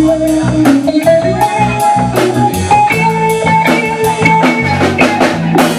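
Live band playing: electric guitar and bass guitar over a drum kit, with a held melody line above the bass notes and a steady drumbeat.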